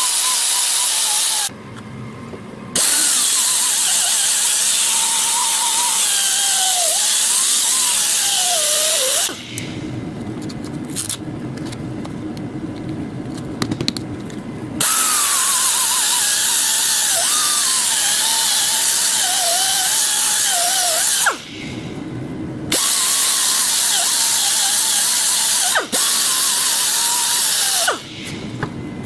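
Pneumatic right-angle mini sander running, with a hissing air exhaust and a whine that wavers and drops in pitch as the disc is pressed onto the cast aluminium of the compressor casting. It cuts out about a second and a half in, again around nine seconds and twenty-one seconds, and near the end, leaving a quieter, lower hum between runs.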